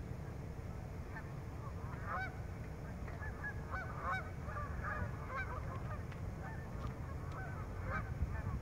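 A flock of Canada geese honking: many short, overlapping calls that grow denser about two seconds in, over a steady low background noise.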